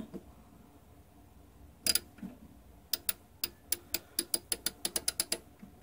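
3/8-inch drive socket ratchet being worked by hand, its pawl clicking evenly at about six clicks a second for a couple of seconds. A single clack comes about two seconds in, before the clicking starts.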